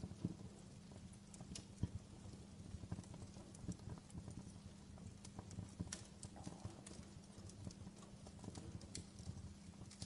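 Campfire wood crackling: faint, irregular sharp pops and snaps over a low steady hum.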